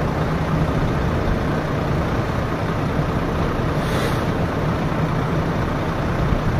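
Heavy diesel engines of a Volvo excavator and a Volvo FMX tipper truck running steadily, a constant low hum under a dense rumble.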